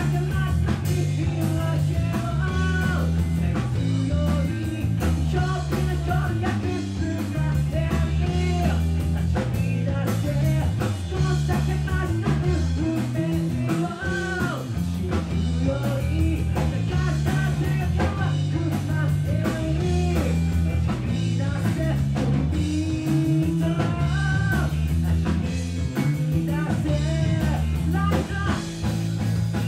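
A live rock band playing a funky, soulful song: a male singer over electric bass and a drum kit, the bass line strong and steady under the vocal.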